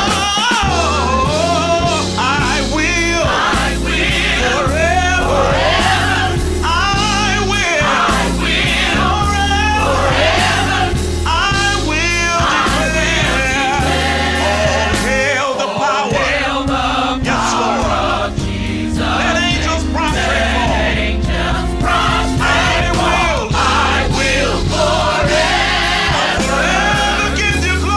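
Gospel choir and worship band performing a worship song: sung lines with wavering, held notes over a steady bass and rhythm.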